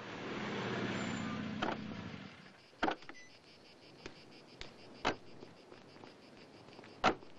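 A car rolling to a stop with its engine running, the sound fading out after about two seconds; then three sharp clicks of car doors opening and shutting, a couple of seconds apart.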